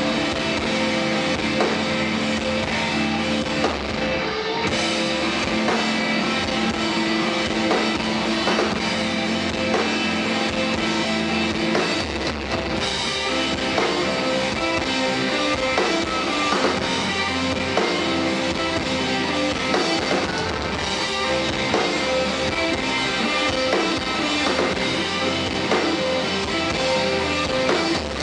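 Live rock band playing: amplified electric guitars over a drum kit, dense and steady.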